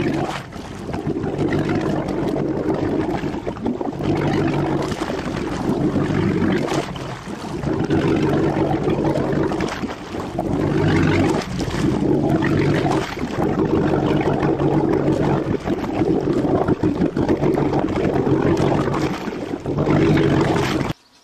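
A boat's motor running, with water sloshing; its low hum swells and dips every few seconds, then cuts off abruptly near the end.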